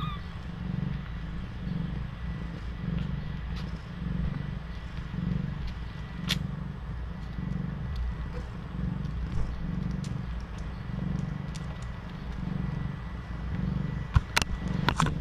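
Cat purring, a low steady rumble that swells and fades in an even rhythm about one and a half times a second. A few sharp clicks come near the end.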